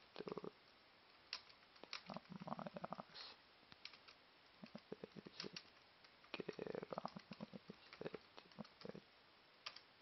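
Faint, irregular clicks and taps of a laptop keyboard and touchpad. A couple of short buzzy clusters come about two and a half and six and a half seconds in.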